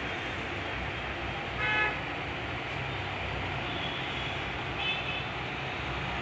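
Steady road-traffic noise with a vehicle horn tooting briefly a little under two seconds in, and a shorter, higher toot about five seconds in.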